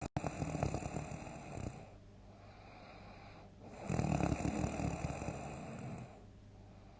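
A sleeping person snoring loudly: two snores about two seconds long each, some four seconds apart, with quieter stretches between.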